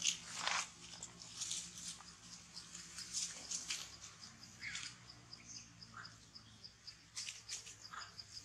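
Monkeys moving over dry fallen leaves and eating fruit: irregular crackling rustles and crunches, busiest in the first half. From about halfway an insect chirps in a steady, even rhythm, and a few short high squeaks come in near the end.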